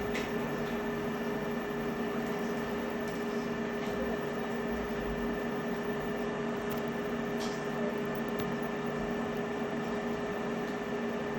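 Steady machine hum with several held tones over a noisy bed, broken by a few faint clicks.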